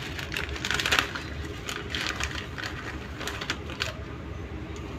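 Water boiling in a stainless steel pot with a bundle of dry spaghetti in it, bubbling with irregular crackles and ticks.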